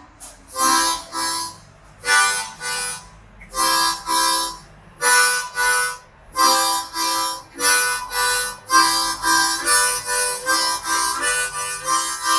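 Hohner Marine Band harmonica in C playing a chugging train rhythm: low chords alternately drawn and blown with a tongued "tuku-taka" articulation. The pairs of chords start slow and speed up from about eight seconds in, as the train pulls out and accelerates.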